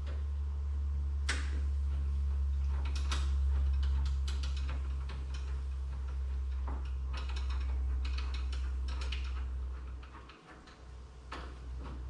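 Hand screwdriver turning the mounting screws of a Schlage smart deadbolt: scattered small metallic clicks and ticks, in clusters. Under them a steady low rumble, the loudest sound, which falls away about ten seconds in.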